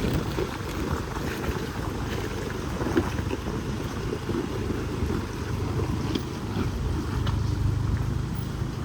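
4x4 vehicle driving on a trail: a low engine and road rumble with a faint steady hum, wind buffeting the microphone, and scattered small knocks.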